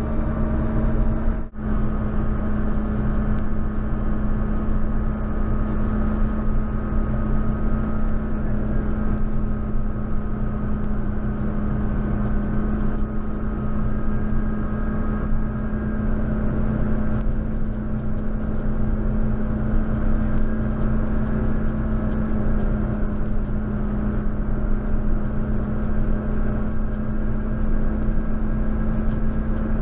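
JCB Fastrac 4220 tractor's diesel engine running steadily as it works a snow plough, a constant drone with a pronounced low hum. The sound cuts out for an instant about a second and a half in.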